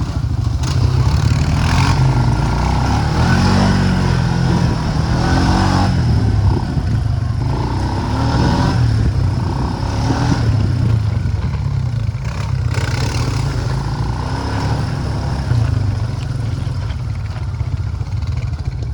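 ATV (four-wheeler) engine running as it is ridden, its pitch rising and falling with the throttle.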